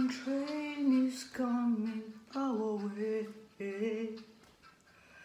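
A woman singing unaccompanied, holding long, slightly wavering notes in four or five short phrases, the last one ending about four and a half seconds in.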